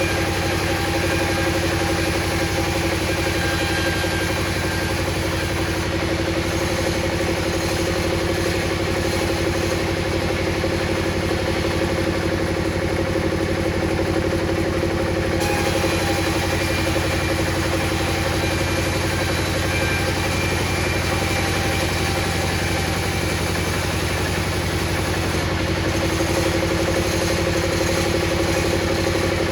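Table saw running steadily with a constant motor hum and whir. The higher hiss changes character about halfway through.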